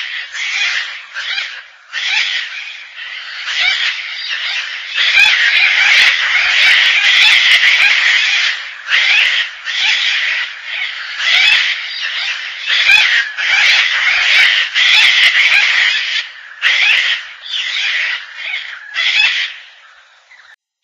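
Gang-gang cockatoo calls: harsh, scratchy calls in short bursts, coming thick and almost unbroken through the middle stretch, with a few sharp clicks.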